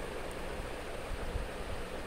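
Steady hiss with uneven low rumbling underneath, like wind noise on a microphone.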